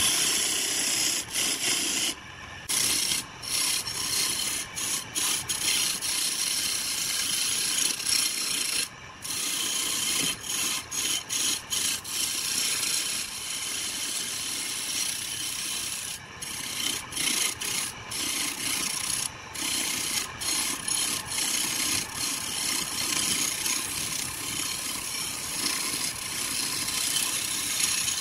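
Hand-held turning chisel cutting into a spinning wooden blank on a wood lathe: a steady scraping noise, broken again and again by brief pauses as the tool lifts off the wood.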